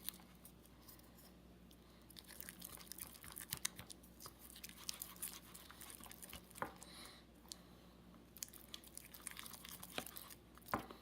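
Faint, irregular sticky clicks and crackles of slime being stirred in a bowl as a borax-and-water activator is worked in, the slime still tacky.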